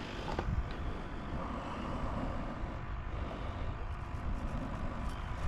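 Wind buffeting the microphone: a steady, uneven low rumble with a faint hiss.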